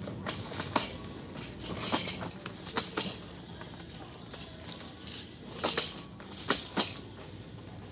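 Store-aisle background hum with scattered sharp clicks and light rustles, several coming in quick pairs.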